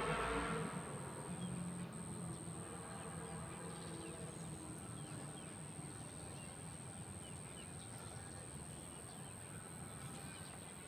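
Faint outdoor ambience: a low engine hum that fades away over the first few seconds, with scattered faint bird chirps.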